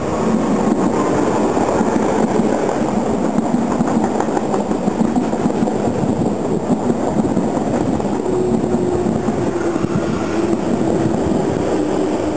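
Double-deck electric multiple unit passing close by at speed: a steady rumble of wheels on rail with some clickety-clack over the rail joints. A steady low hum joins in about eight seconds in.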